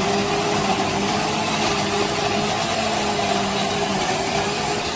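Countertop blender motor running at speed, puréeing a jug of tomatoes and peppers: a loud, steady whir with a low hum under it that fades about four seconds in.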